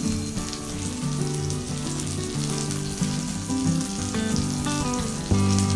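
Semolina-coated stuffed pomfret shallow-frying in oil in a flat pan, a steady sizzle. It runs under background music of held notes that change pitch every second or so and get louder near the end.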